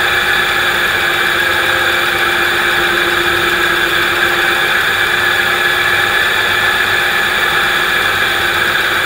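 Electric bike's rear hub motor, driven by an Adaptto controller, spinning the lifted rear wheel at about 50 km/h. It gives a steady whine of several held tones. Its IND timing is being adjusted to get rid of vibration and find the smoothest, fastest rotation.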